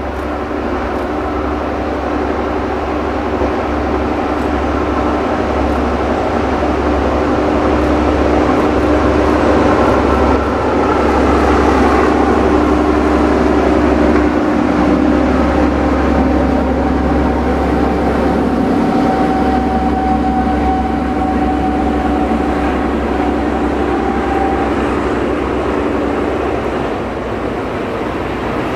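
Diesel locomotives of a narrow-gauge train running past, their engines giving a steady multi-tone sound that swells to its loudest about halfway through and eases off toward the end.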